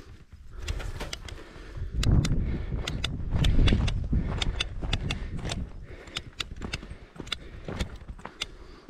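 Footsteps on a dry dirt trail, a steady series of crisp crunches, with a loud low rumble on the microphone from about two seconds in until about six seconds in.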